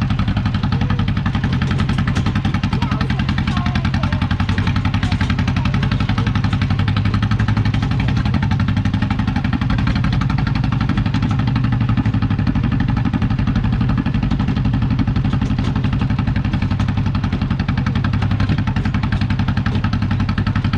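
Farm tractor engine running steadily under light load as it tows a hay-ride wagon, heard from the wagon behind it.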